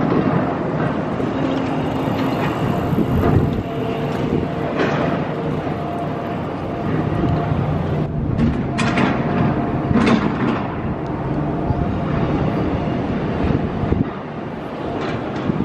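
A train running on nearby railway tracks: a steady rumble with rail clatter and a few sharp clanks about halfway through, easing off near the end.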